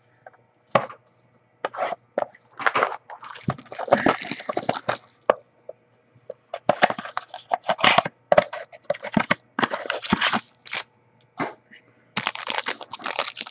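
Trading-card packaging being torn open and the cards handled: irregular runs of sharp cracks and tearing noise in three groups, with short pauses between.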